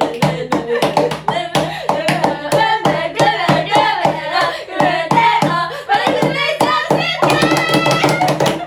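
Quick rhythmic hand claps and slaps beating out a song's rhythm, with a melody sung over them.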